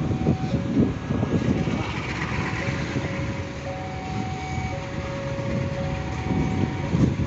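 Diesel locomotive running as it approaches, a steady low rumble that swells unevenly, with a few faint steady tones above it.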